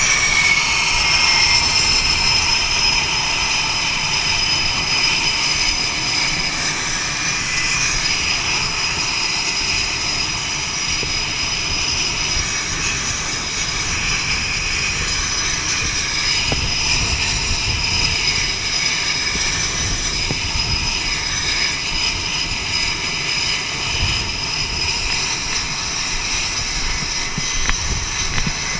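Jet aircraft engines running on an aircraft carrier's flight deck: a steady, high-pitched whine over a low rush, the whine dropping slightly in pitch in the first couple of seconds.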